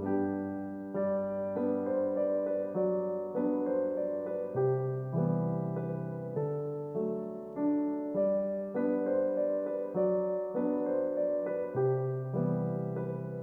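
Background music: a gentle electric-piano or keyboard melody over held bass notes, its notes struck at an even, unhurried pace.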